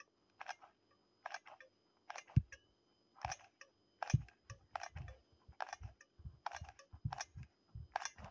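Hot glue gun's trigger clicking over and over, about one or two clicks a second, as glue is fed along a row of wine corks. From about two seconds in, soft low knocks go with many of the clicks.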